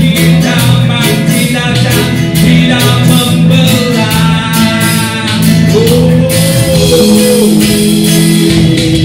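Live band playing a reggae-style song: a man sings over electric guitar, a steady bass line and a bamboo flute.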